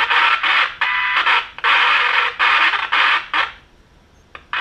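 A six-transistor SoundDesign radio's speaker cutting in and out as a transistor in its RF/IF section is pressed. It gives loud bursts of static with a steady tone running through them, breaking off irregularly, dropping out about three and a half seconds in and coming back briefly near the end. It is the sign of an intermittent connection at that transistor, which the repairer suspects is an open solder trace.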